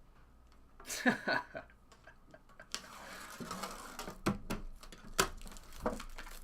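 Trading cards and their packaging being handled on a table: scattered small clicks and taps with soft rustling of wrapper and card stock.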